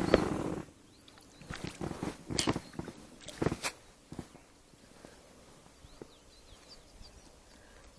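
Knocks and clatter of gear being handled in a small fishing boat: a burst at the start, then several sharp knocks over the next few seconds. Then quiet, with faint bird chirps.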